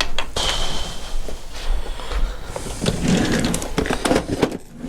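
Metal hand tools clinking and knocking, with scraping, as a socket is fetched from a toolbox drawer; a short metallic ring about half a second in.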